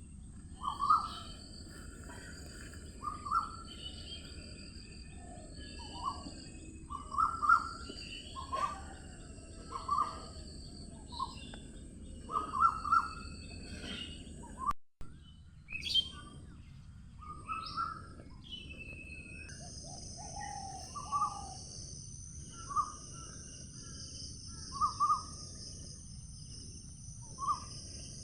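Birds calling with short, repeated chirps over a steady high insect drone; a second, higher insect trill joins about two-thirds of the way through. The sound drops out for a moment about halfway.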